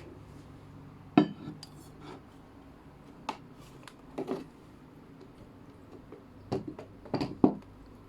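Scattered sharp knocks and clinks of hard objects being handled and set down, about ten at uneven intervals, the loudest about a second in and near the end.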